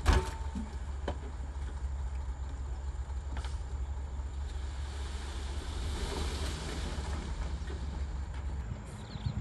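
Dump truck's engine running with a steady low rumble while its tipped bed empties a load of soil, the dirt sliding out with a hiss in the middle of the stretch. A sharp knock comes right at the start, and the rumble drops away near the end.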